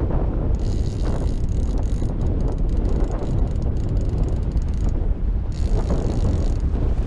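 Steady low rumble of wind and water noise on a camera microphone aboard a trolling boat, with a fainter high hiss through the middle few seconds.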